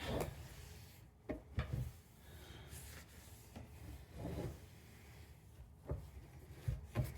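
Cloth rubbing over a plastic headlight lens in short, faint strokes, with a few light knocks of handling.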